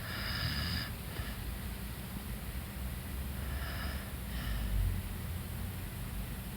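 A sleeping corgi snoring: two snores about three and a half seconds apart, each followed by a short, fainter breath.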